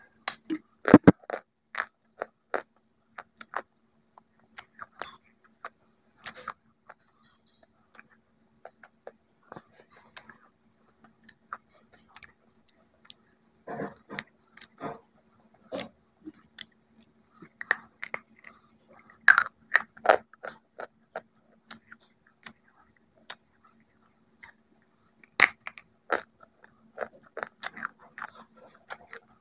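Close-up eating sounds: crisp, irregular crunches as a hard white bar is bitten into, with chewing between the bites. A faint steady hum sits underneath.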